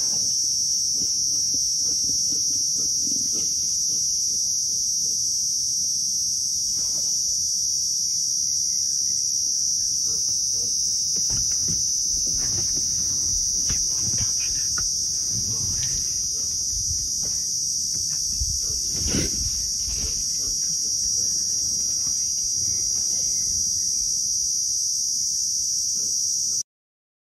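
Steady high-pitched drone of a chorus of insects, with low rumbling and a few soft knocks underneath. It cuts off abruptly near the end.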